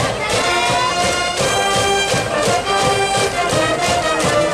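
School cheering brass band playing a cheering tune, horns holding long notes over a steady drumbeat.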